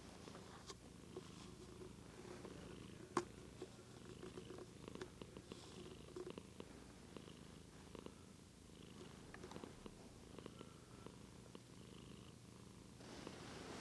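A white Russian White cat purring softly and steadily, with one sharp click about three seconds in.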